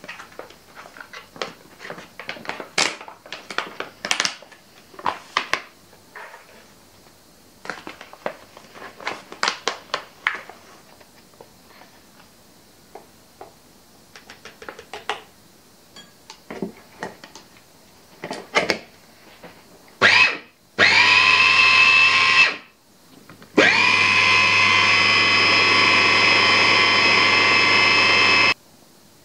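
Light clicks and taps of a spoon and packaging while cacao powder is added, then an electric mini chopper's motor running in three bursts: a short blip, a run of about two seconds, and a steady run of about five seconds that cuts off suddenly, as it blends a thick cacao paste.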